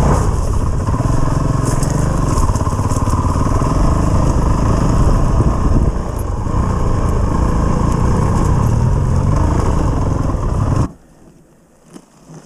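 Honda CRF450RL's single-cylinder engine running as the dirt bike climbs a rough, rocky trail, with clatter from the bike over the ground. Near the end the engine cuts out suddenly as the bike tips over and stalls.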